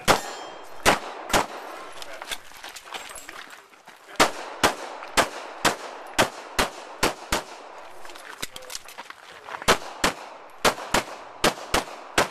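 Pistol fired in quick pairs of shots, about eighteen in all, in three strings with pauses of two to three seconds between them.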